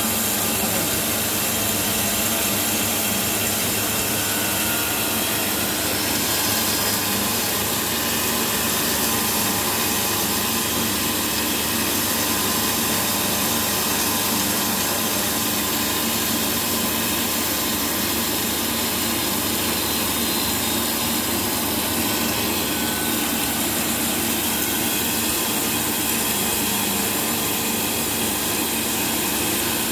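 Coffee-processing machine running steadily, a constant motor hum with an even mechanical whirr and hiss.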